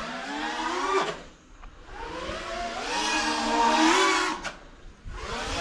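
The brushless motors of a 5-inch FPV freestyle quadcopter whine, their pitch sliding up and down with the throttle. The whine falls away a little after a second, climbs back to a high pitch, then drops again shortly before the end.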